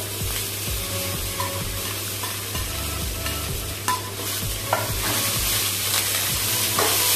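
Fresh coriander and mint leaves sizzling in hot oil in a metal kadai as they are stirred and tossed with a metal slotted spoon, with a few short clinks of the spoon against the pan.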